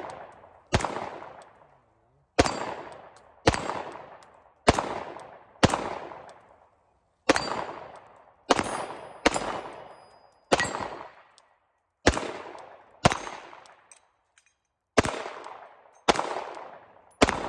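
Glock P80 9mm pistol fired in slow, steady succession through a magazine: about fourteen sharp shots roughly a second or a second and a half apart, each echoing for about a second.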